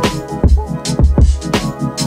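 Background music with a steady electronic drum beat, deep bass and held melodic notes.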